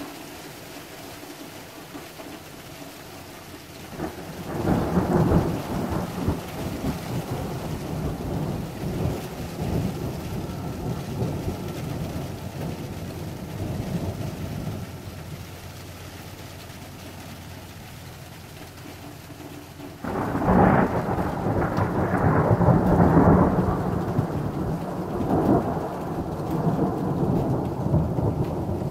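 Two long rolls of thunder over a steady hiss of falling sleet. The first rumble builds about four seconds in and dies away over some ten seconds; the second breaks suddenly about twenty seconds in, louder, and is still rolling at the end.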